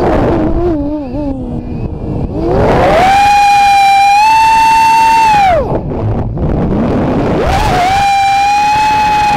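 Vortex Pro FPV racing quadcopter's brushless motors and propellers whining, heard from the onboard camera, throttled off and punched back up twice. The high whine drops sharply at the start into a low wavering buzz, climbs back about two and a half seconds in and holds, drops again a little past halfway, then climbs back and holds near the end, over a steady rush of wind.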